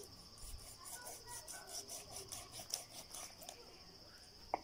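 Faint, steady high trill of crickets, with soft irregular clicks and scrapes of a knife cutting up mudfish (African catfish) on a board, and one sharp click near the end.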